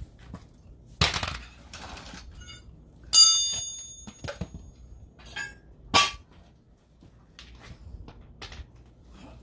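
Metal tools and sockets being set down and handled on a concrete floor: a knock about a second in, a loud ringing metal clang about three seconds in, a sharp knock near six seconds, and a small high clink near the end.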